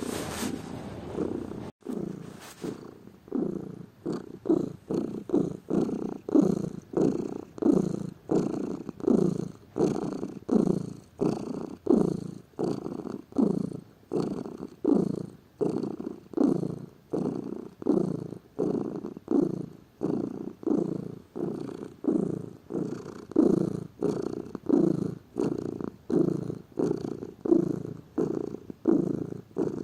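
Domestic cat purring steadily. The purr swells and fades with each breath in and out, about three pulses every two seconds. A brief rush of noise comes right at the start.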